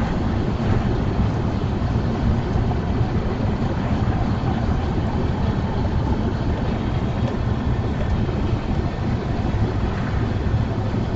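Steady road and engine noise of a car driving along, heard from inside the cabin: an even low rumble with no sudden events.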